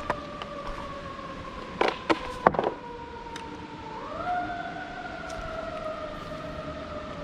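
A siren wailing: one sustained tone that slowly sinks, then rises about four seconds in and slowly falls again. A few sharp clicks come about two seconds in.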